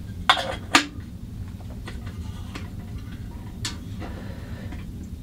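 Metal clinks as the lids are fitted onto a metal percolator coffee pot: two sharp, ringing clinks close together about half a second in, lighter taps after, and one more clink a little past the middle. A steady low hum runs underneath.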